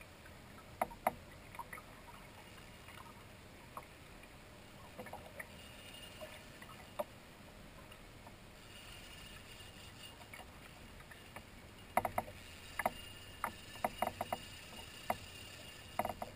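Water lapping against the hull of a kayak as it drifts, with a steady faint wash and scattered small sharp knocks and clicks, more frequent in the last few seconds.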